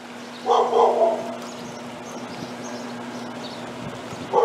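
A dog barking: a run of barks about half a second in, then two more near the end, over a steady low hum and background hiss.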